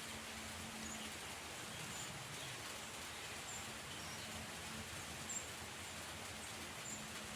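Outdoor ambience before rain: a steady, even hiss with short, high chirps repeating every second or two, and a faint low hum that comes and goes.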